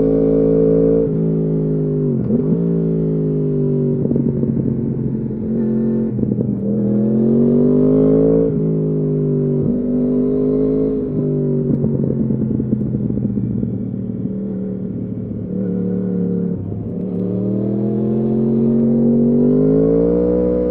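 2015 Yamaha R1's crossplane inline-four through an Akrapovič exhaust, under hard acceleration: the engine note climbs with revs in each gear and drops sharply at each quickshifter upshift, several times over. Midway the pitch sinks as the bike slows off the throttle, then it pulls up through the gears again.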